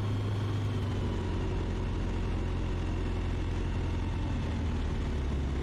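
Kitfox light aircraft's engine and propeller running in a steady drone during slow flight with full flaps, the low hum shifting slightly near the end.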